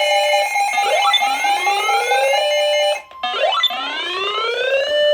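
Electronic emergency-alert alarm tones: a rising whooping sweep that repeats about once a second, overlaid with short steady beeps. The sound drops out briefly about three seconds in, then resumes.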